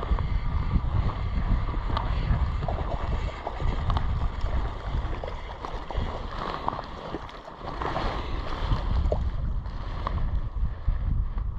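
Wind buffeting the microphone, a gusting low rumble that rises and falls, with a few faint short ticks over it.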